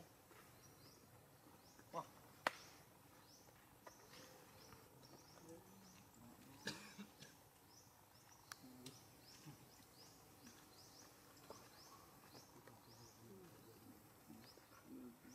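Quiet outdoor ambience: a high chirp repeated two or three times a second, with a few sharp clicks, the loudest about two and a half seconds in, and faint low calls in the background.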